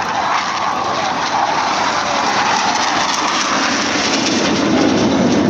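Jet aircraft flying past: a loud, continuous roar whose pitch falls steadily as it goes by.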